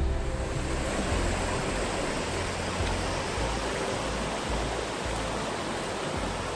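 Steady rushing of a river or creek flowing over rocks, with an uneven low rumble underneath.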